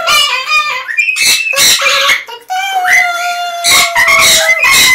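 Pet parrots calling loudly with several harsh squawks, mixed with held whistle-like calls, the longest a steady drawn-out tone over the second half.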